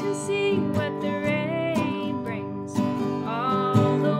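A woman singing a melody to her own strummed acoustic guitar, the chords struck in a steady rhythm.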